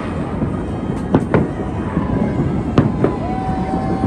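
Aerial fireworks bursting overhead: four sharp bangs, a close pair about a second in and another pair near the end, over a steady wash of street noise.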